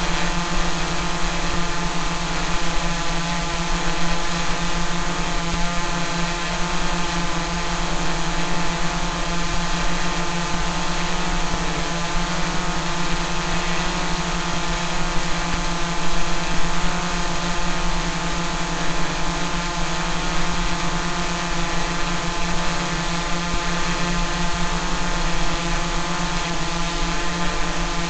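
Small drone's propellers and motors running at a steady speed: a continuous whine that holds one pitch.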